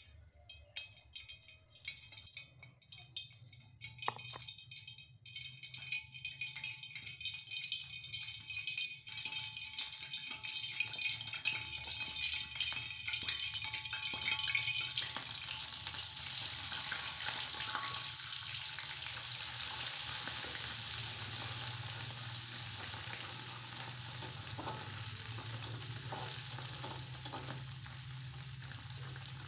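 Food frying in hot oil in a wok on a gas stove, with a spatula stirring: sparse crackling at first, building to a dense, steady sizzle by about halfway through.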